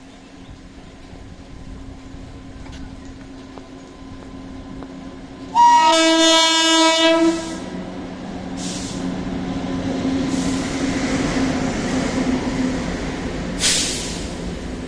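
Indian Railways WAP-7 electric locomotive sounding its horn in one long blast of under two seconds, about five and a half seconds in, after a low steady hum. The rumble of the train passing then builds, with a short sharp hiss near the end.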